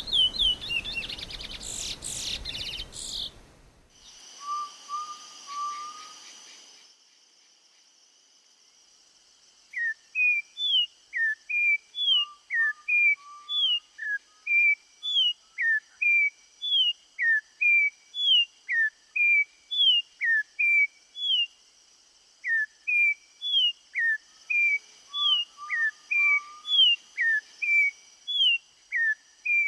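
Songbird singing. First comes a quick burst of rapid chirps. After a short pause, from about ten seconds in, the bird repeats short, sharp, down-slurred whistled notes about twice a second, with a few lower slurred notes mixed in.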